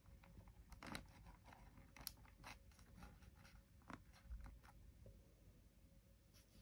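Faint, scattered small clicks and rustles of fingers handling plastic model parts and thin wires, pressing the cables into place along the model's sill, with the clearest clicks about one, two and four seconds in.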